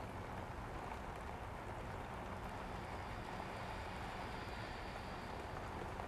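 Steady background room noise: an even hiss with a faint low hum, with no distinct events.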